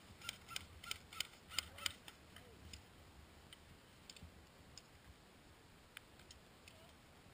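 A quick run of sharp clicks, about seven in under two seconds, then a few faint single clicks.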